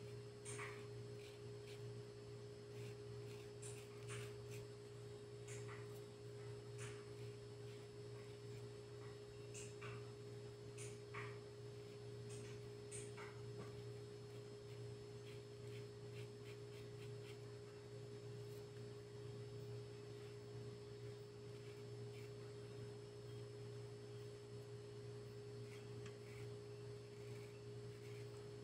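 A faint steady hum, a low drone with a thin higher tone over it. Now and then there are soft, short scratches of a flat paintbrush stroking fabric paint onto cloth.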